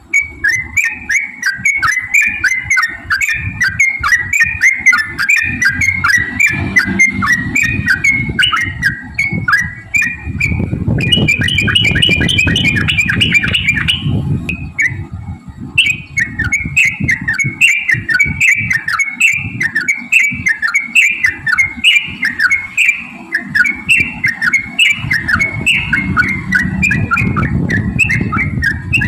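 Yellow-vented bulbul (trucukan) singing a long, rapid chattering run of short bubbly notes, with brief breaks about ten and fifteen seconds in, over a low background rumble.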